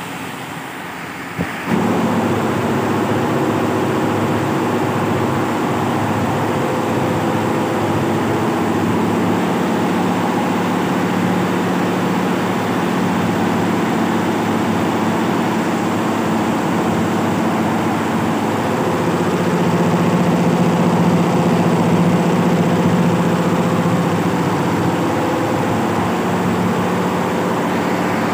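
Industrial 23-head computerized embroidery machine running steadily, a dense mechanical hum with several steady tones. The sound comes in suddenly louder about two seconds in and swells slightly in the middle.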